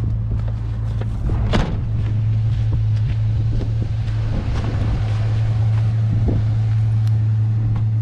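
A vehicle engine running at a steady low speed, with a short click about one and a half seconds in.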